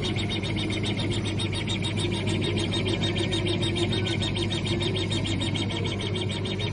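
Small CO2 laser cutting and engraving machine running, its laser head moving back and forth in a fast, even rhythm several times a second over a steady low hum.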